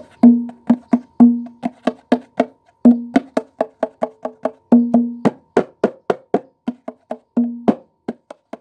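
Small drum of a homemade kendang set, its head a sheet of blue plastic (mika) patched with tape, hand-struck in a quick rhythm. It is a fast run of about four or five strokes a second, mixing short ringing low tones with sharper slaps.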